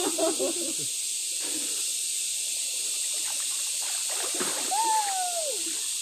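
Water in a spring-fed rock pool, running and splashing with a steady high hiss as a bather swims through it. Brief voices come in the first second, and one drawn-out falling vocal exclamation comes near the end.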